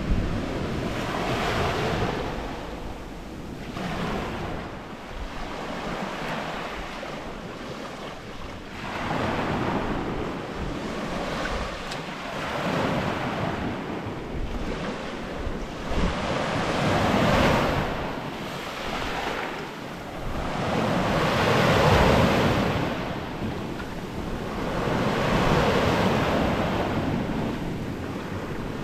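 Ocean waves breaking and washing up the shore, the surf swelling and fading every few seconds, with wind on the microphone.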